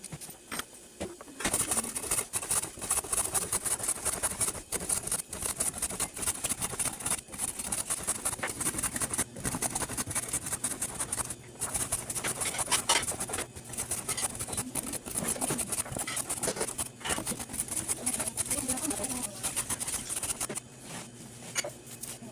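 A raw carrot scraped against a metal blade in fast, repeated rasping strokes, as in peeling or shredding. The scraping starts about a second and a half in and stops shortly before the end.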